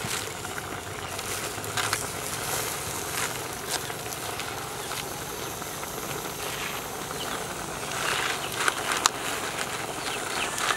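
Chinese cabbage and water spinach leaves rustling as they are handled and pressed down in an aluminium pot, loudest about eight seconds in, over a steady background hiss with scattered sharp clicks.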